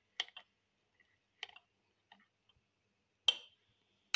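Metal spoon clinking against the inside of a glass cup while stirring coffee and milk: a few light, scattered clicks, with a louder ringing clink a little over three seconds in.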